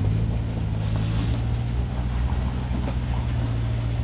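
Off-road vehicle engine running at a steady, slightly raised speed, its pitch stepping up right at the start and then holding even.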